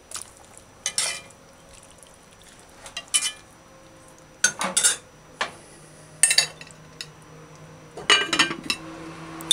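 A metal spoon clinking against an aluminium cooking pot in a few separate knocks, then the aluminium lid clattering onto the pot about eight seconds in.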